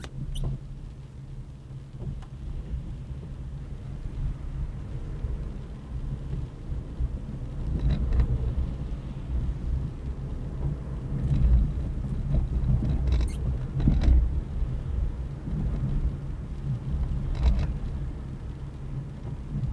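Low, steady rumble of a car's engine and tyres on a wet road, heard from inside the cabin, swelling in the middle, with a few short clicks or knocks.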